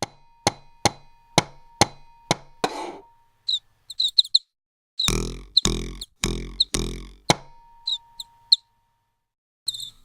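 Designed sound effects for an animated short about small birds: a row of six sharp clicks about twice a second over a faint steady tone, then short high bird chirps, four heavy low thuds with a deep ring, and more chirps near the end.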